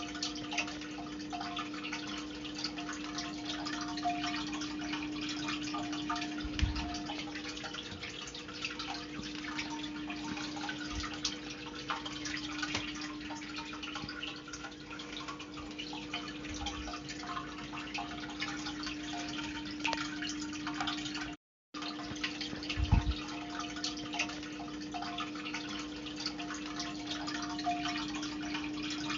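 Water dripping and trickling steadily over a constant low hum, with a few soft low thumps and a brief dropout about three-quarters through.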